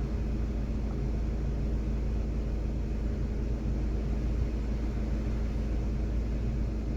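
Maruti Suzuki Swift Dzire engine idling steadily, an even low hum with no change in speed.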